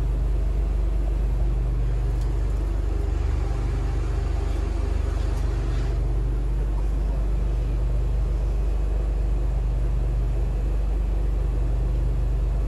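Steady low mechanical hum from machinery running inside a food truck, with a few faint light clicks.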